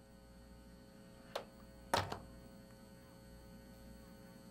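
Steady low electrical mains hum, with two short sharp clicks or knocks about a second and a half and two seconds in, the second one louder.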